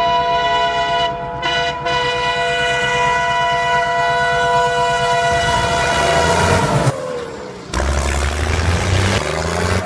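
Train horn blowing one long steady blast of several notes at once for about seven seconds, its pitch sliding down as it ends. A low rumble follows near the end.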